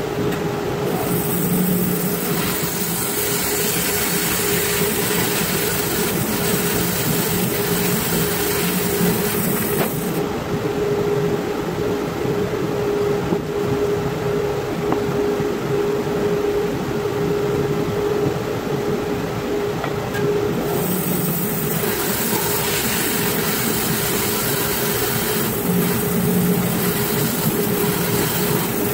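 Grizzly 17-inch bandsaw running with a constant hum, its 1-inch, 2/3 TPI bimetal blade cutting wood with a hiss for the first ten seconds or so and again over the last several seconds, idling more quietly in between.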